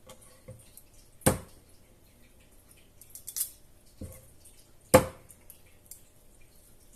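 Kitchen dishware and utensils being handled: two sharp knocks about four seconds apart, a fainter knock just before the second, and a brief rustle between them.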